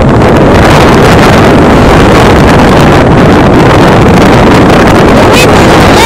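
Strong wind buffeting the microphone in a steady loud rush.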